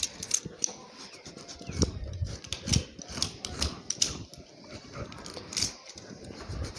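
Packing tape being peeled off a long plastic-wrapped parcel, with the wrapping crackling irregularly and several short rasping rips of tape.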